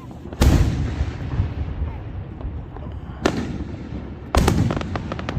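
Fireworks going off: a loud boom about half a second in that rumbles away, a sharp bang a little after three seconds, then another boom near the end followed by a quick run of crackling pops.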